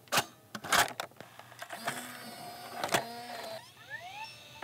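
Cassette tape mechanism: a couple of sharp plastic clicks as the tape is loaded, then a steady motor hum with another click, and a motor whine rising in pitch as the tape spins up.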